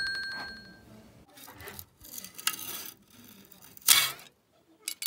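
Apple Watch timer alarm going off: rapid high-pitched beeping that stops about a second in, marking the timer done. A short loud noise about four seconds in.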